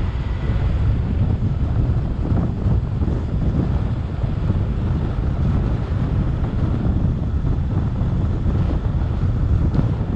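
Wind buffeting the microphone of a camera on a moving car, a steady low rumble with the car's road noise underneath.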